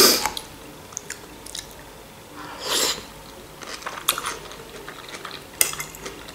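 Chewing and biting mouth sounds from eating pasta with minced meat and a cucumber-tomato salad. A few short, sharp clicks of a metal fork on a plate come through, the loudest right at the start and more about four and five and a half seconds in.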